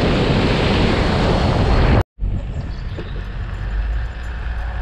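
Wind buffeting the microphone of a moving car: a loud rushing noise with a deep rumble. About two seconds in it cuts off abruptly. After a brief silence, a quieter, steady rumble of the car driving follows.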